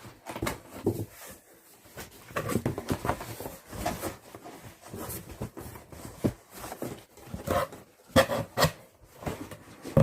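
A heavy box being pulled out of a larger shipping box and handled: irregular scraping, rustling and knocks, with a cluster of louder thumps about eight seconds in.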